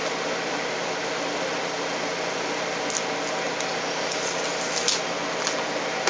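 Steady background hiss with a few faint crackles and ticks from about halfway through, as the backbone strip and its double-sided tape are handled.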